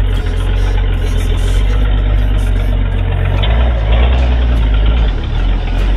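Pickup truck engine running loud while driving, heard from inside the cab, with its exhaust manifold removed so the exhaust comes straight out of the head. It gets louder about three and a half seconds in, then eases back.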